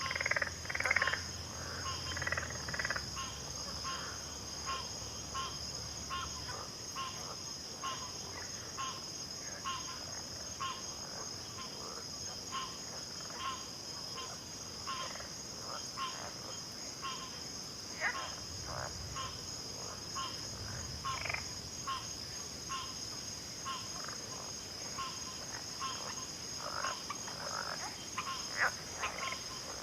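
Chorus of frogs calling in a backwater, many short calls overlapping at about one or two a second, over a steady high insect trill.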